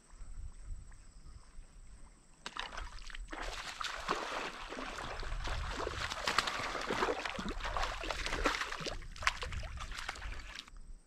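Hooked largemouth bass of about a pound thrashing and splashing at the water's surface as it is reeled toward the bank. The splashing starts about two seconds in, is heaviest in the middle and stops just before the end.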